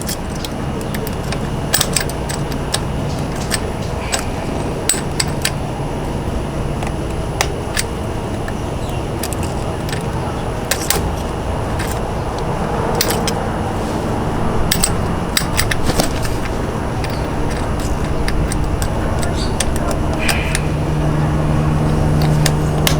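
Pliers clicking and clinking on a bent steel cotter pin as it is worked straight: scattered, irregular sharp metallic clicks over a steady low hum.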